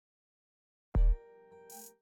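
Silence, then a music track begins about a second in with a heavy bass drum hit under a held chord, followed by a brief hissing burst like a cymbal.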